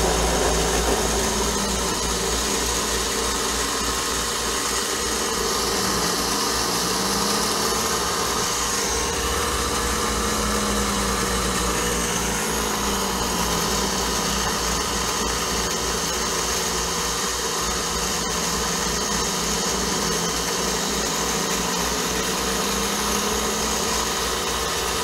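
CNC mini mill cutting under program control: the spindle turns a 3/8-inch end mill at 2500 RPM, giving a steady running noise over a low hum, with a fainter tone that repeatedly rises and falls. A single brief click about 18 seconds in.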